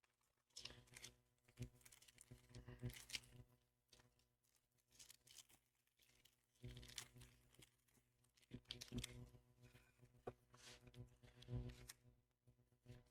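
Faint crinkling and tearing of a Pokémon TCG booster pack's foil wrapper being opened and handled, in two spells of rustling.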